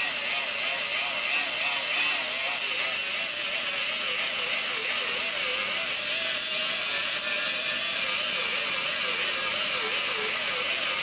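Hand-held pneumatic tool running against the edge of an aluminium aircraft part. A steady high hiss, with a whine that wavers up and down about twice a second as the tool is worked along the metal.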